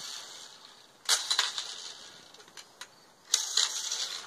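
A Nerf Brain Saw toy blaster being fired in short hissing bursts, the one about a second in opening with sharp clicks, and another burst near the end.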